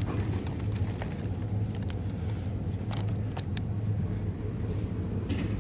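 Steady low hum of a convenience store's background noise, with a few brief clicks about three to three and a half seconds in.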